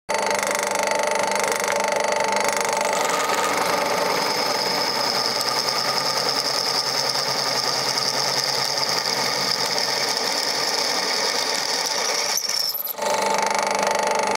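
Drill press running with its twist bit cutting into a rusty steel bar: a steady motor hum with a high whine from the cut. Near the end the sound dips out briefly, then resumes.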